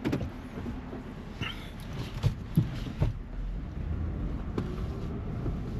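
A car moving slowly, with a low rumble and a few light knocks and clicks, and some wind on the microphone.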